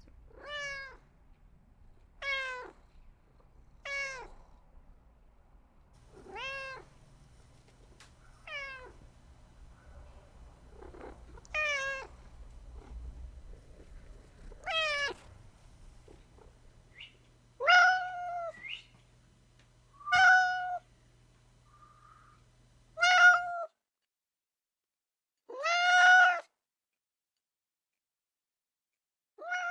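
Domestic cat meowing again and again: about a dozen separate meows, each rising and falling in pitch, two to three seconds apart. From about halfway through the meows are louder and drawn out longer.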